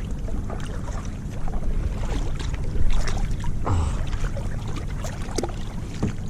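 Water slapping against a small boat's hull and a steady low rumble of wind on the microphone, with scattered knocks and rustles from handling in the boat.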